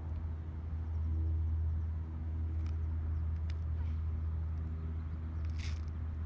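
Steady low hum of running machinery, with a few light clicks and a short hiss about five and a half seconds in.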